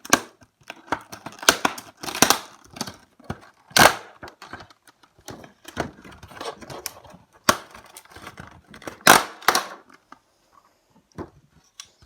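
Toy packaging being opened by hand: irregular tearing and crinkling with sharp snaps, some much louder than others, going quieter near the end.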